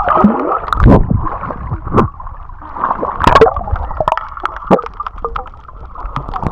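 Water gurgling and sloshing around a camera held under the surface, heard muffled, with several sharp knocks and splashes along the way.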